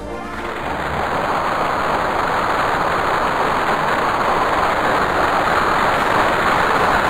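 Bullring crowd cheering as one steady, dense roar that grows louder over the first couple of seconds and then holds.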